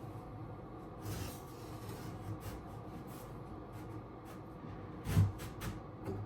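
Light scraping and rubbing, then a quick cluster of knocks about five seconds in.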